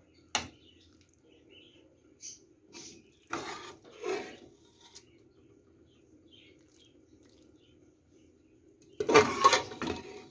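Metal slotted spoon clinking and scraping against a metal pot and glass dish while stewed tripe is served out: one sharp clink about half a second in, two short scrapes a few seconds later, and a longer, louder clatter of scraping near the end.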